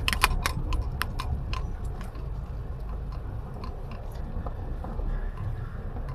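Low, steady rumble of a car creeping slowly, heard from inside the cabin, with a quick run of sharp clicks and crunches in the first two seconds.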